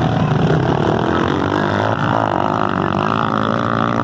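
Several motocross motorcycle engines racing, their pitches rising and falling as the riders work the throttle.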